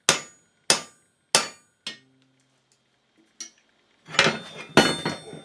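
Hammer tapping the wedge into the mounting bracket of a leg vise: four sharp metal knocks about two-thirds of a second apart, the last one lighter. Near the end, a short run of clinking and clattering metal.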